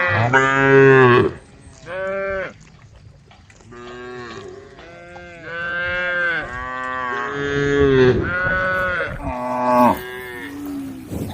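Cattle in a herd mooing, one call after another: a loud moo at the start, a short one about two seconds in, then several long moos overlapping in the middle, and shorter ones near the end.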